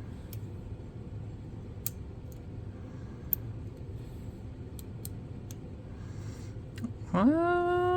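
Faint, scattered metallic clicks of lock picks working the pins of a padlock. Near the end a man's drawn-out voiced sound rises in pitch and then holds, the loudest thing here.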